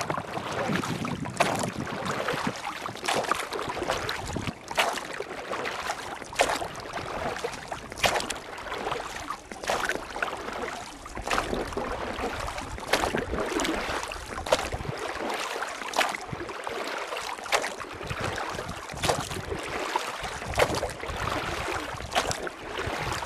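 Rushing river water with repeated sharp splashes, about one every second or so.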